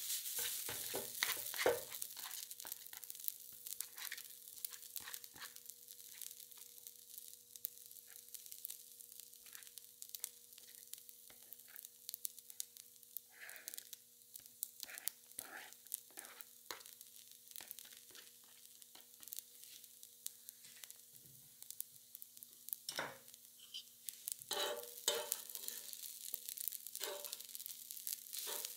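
Rice and corn frying on a hot griddle with a steady sizzle, while spatulas scrape and tap against the plate in irregular strokes, busiest at the start and again near the end. A faint steady hum runs underneath.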